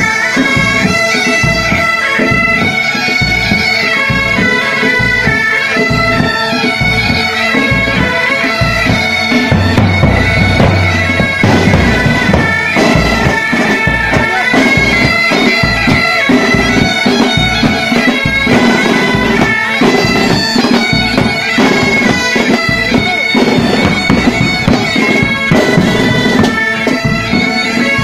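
Military pipe band playing: a line of Great Highland bagpipes sounding a tune over their steady drones, with snare and bass drums beating time.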